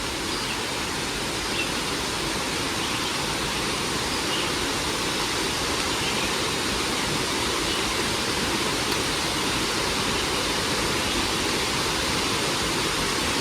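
Steady rush of flowing water, like a creek, with an even level throughout.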